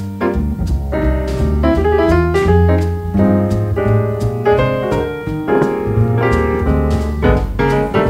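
Background music led by piano.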